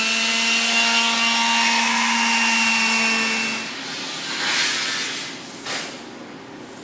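An electric power tool runs at full speed with a steady whine and a harsh hiss, used for sanding the rusted car panel, and cuts off about three and a half seconds in. A couple of short rubbing sounds follow.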